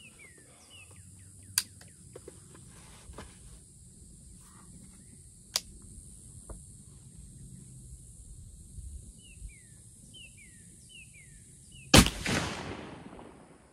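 A black-powder muzzleloading rifle loaded with 70 grains of 2F powder fires a single shot near the end: a sharp crack followed by a trailing boom that dies away over about a second and a half. Before it, a couple of faint clicks.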